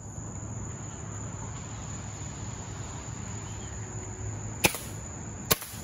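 Steady high chirring of night crickets, then two sharp pops about a second apart near the end, shots from .22 air rifles.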